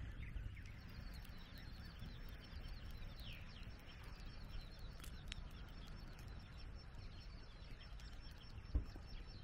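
Faint outdoor morning ambience: birds chirping now and then over a low, steady rumble, with a single soft thump near the end.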